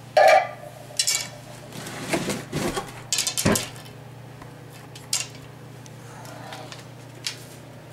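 Wooden arrow shafts clattering and knocking together as they are handled and gathered: a series of sharp knocks and rattles, the first and loudest with a brief ring, then scattered single taps.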